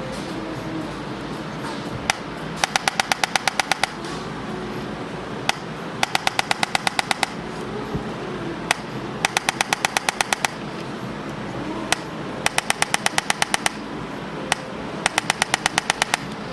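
Chiropractic adjusting gun firing in bursts of rapid thrusts, each burst a quick string of about ten sharp clicks lasting just over a second. There are five bursts, each preceded by a single click.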